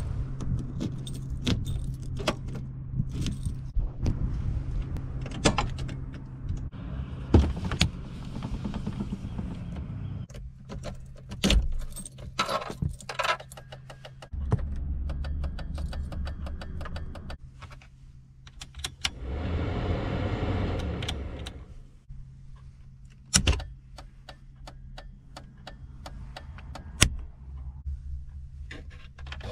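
Volvo 240 being handled: keys jangling and sharp clicks and knocks from the door lock, handle and door. About halfway, with the key in the ignition, a steady low hum sets in. Around two-thirds through there is a louder rushing sound lasting about three seconds, followed by more single switch-like clicks.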